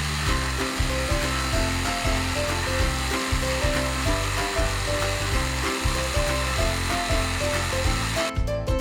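Background music with a melody and bass line, over a steady rasping hiss from a tool working wood that stops abruptly near the end.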